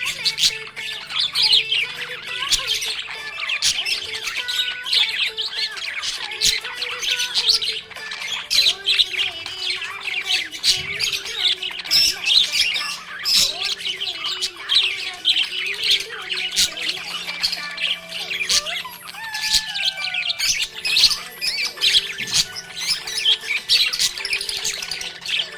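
Budgerigars chirping and warbling in a dense, unbroken stream of high calls, with many short sharp notes.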